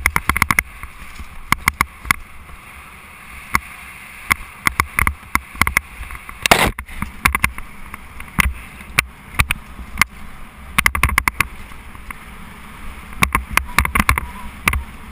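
Mountain bike ridden fast down a rough dirt trail, heard from a camera mounted on the rider: wind rumbling on the microphone with rapid, irregular clatter and knocks from the bike and mount over bumps, and one louder crashing jolt about six and a half seconds in.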